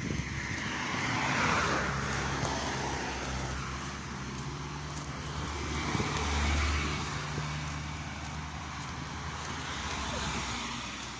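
Cars passing on the road one after another, each a swell of tyre and engine noise that builds and fades: one about a second and a half in, another around six to seven seconds in with a low engine hum, and a third near the end.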